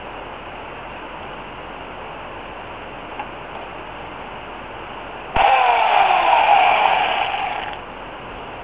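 Remington Limb N Trim electric chainsaw's motor run in a short burst of about two seconds, starting abruptly about five seconds in, its pitch sliding down before it cuts out. Before that only a steady low background hiss.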